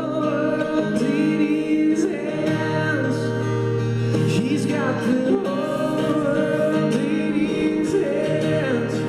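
Live band music: a singer holds long, sliding notes over acoustic guitar and sustained backing instruments.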